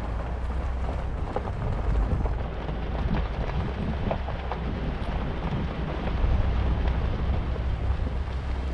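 Wind buffeting the camera's microphone in a steady low rumble, with a few faint clicks scattered through it.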